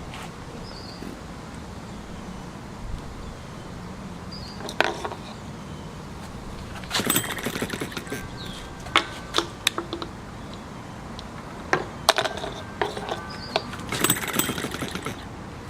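Irregular metallic clicks and clinks from handling a small model engine and its parts: a single click, then scattered bursts of several sharp clicks, some of them ringing briefly.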